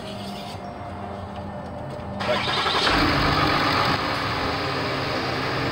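A Ram 2500's 6.7 L Cummins inline-six turbodiesel starts about two seconds in. It surges briefly, then settles into a steady idle, warming the transmission so its fluid level can be checked.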